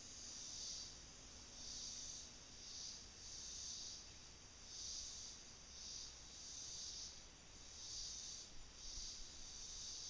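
Insects calling: a faint, high buzzing that swells and fades about once a second, over a thin steady high trill.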